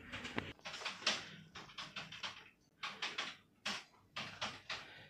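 Irregular light clicks and taps of someone working at a computer, quick runs of keystrokes with short pauses between.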